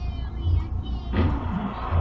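Music playing inside the car, with a steady bass beat. About a second in, a rushing noise comes in suddenly and holds.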